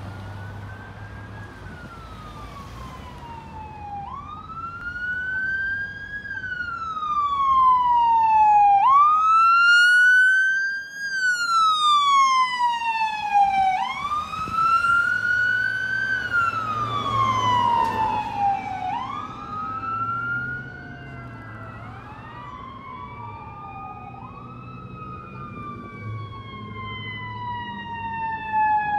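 Ambulance siren on wail, each cycle sweeping quickly up and then slowly down, about every five seconds, loudest as it passes close by in the middle. A second wail siren overlaps it in the last third as a fire engine approaches.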